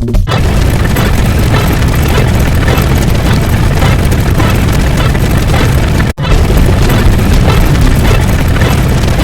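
A loud, dense rumbling sound effect, heavy in the bass like a drawn-out explosion, running without a break except for a split-second cut about six seconds in.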